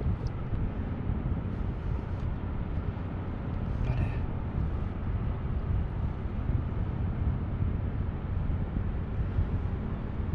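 Steady low rushing outdoor noise, heaviest in the bass, with a brief faint click about four seconds in.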